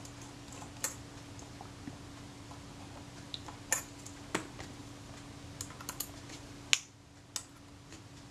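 Scattered small metallic clicks and ticks of a jeweller's screwdriver and tiny screws being handled while the top-cover screws of a Kodak Retina Reflex IV camera are taken out. The sharpest click comes near the end, over a faint steady hum.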